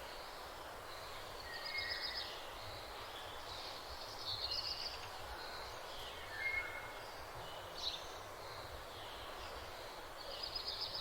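Small birds chirping and trilling now and then over a steady background hiss, with short high trills about two seconds in, at about four and a half seconds, and again near the end.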